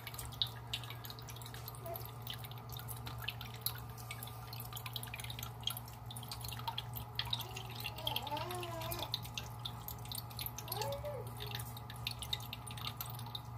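Water from an aquarium filter return dripping and trickling into the tank: an irregular patter of small drips over a steady low hum.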